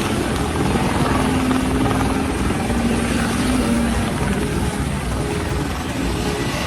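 Private helicopter's rotor beating close by, steady and loud, with an engine hum under it.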